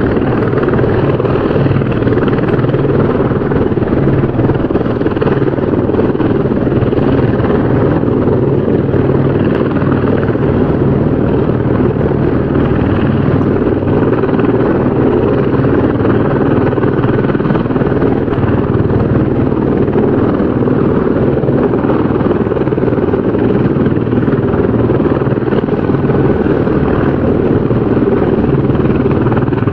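Helicopter rotor and engine noise: a steady, loud, dense beating rumble.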